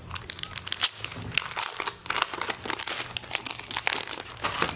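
Clear plastic wrapping crinkling as a packaged sticker book is handled and turned over, a dense run of quick, irregular crackles.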